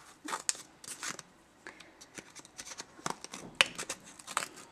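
Scissors snipping through folded cereal-box cardboard: about six short, crisp cuts spaced unevenly.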